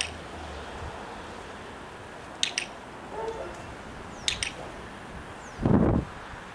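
A handheld box clicker clicking three times, each a sharp two-part click-clack, marking the puppy's behaviour on the floor target. About a second before the end there is a brief low rumble, about half a second long.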